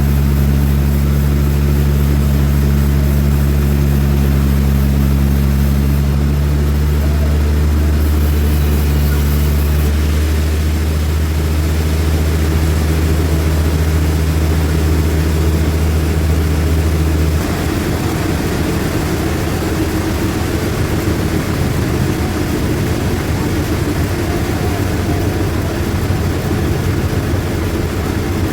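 Sawmill machinery running with a steady low hum; about seventeen seconds in the even hum gives way to a rougher, noisier sound.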